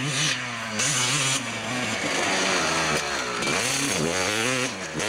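Motocross dirt bike engine revving up and down repeatedly as the rider works the throttle around the track, passing close by about four seconds in.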